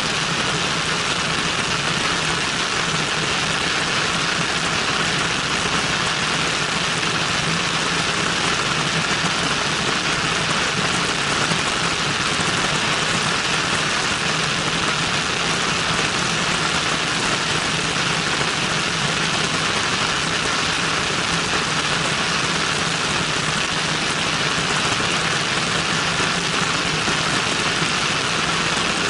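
Cessna 172N's four-cylinder Lycoming engine and propeller running steadily in flight, heard from a camera mounted outside the aircraft and mixed with the even rush of the airflow.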